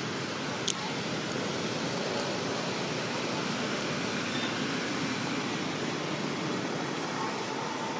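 Steady, even hiss of outdoor background noise, with one sharp click about a second in.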